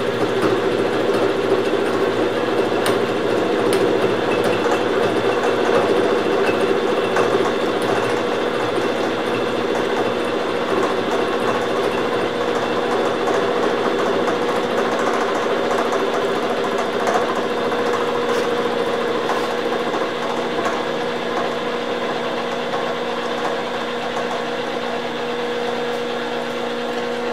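Milling machine running a gear cutter through the teeth of a spur gear rebuilt with TIG-welded silicon bronze, coolant flowing over the cut: a steady machine hum at a constant pitch.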